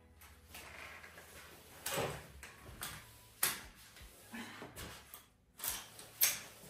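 A flat mop being pushed and pulled across a wooden floor, making irregular swishes and knocks; the sharpest knocks come about halfway through and near the end.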